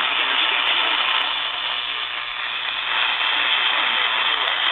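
Weak radio reception: a steady static hiss with faint programme audio beneath it.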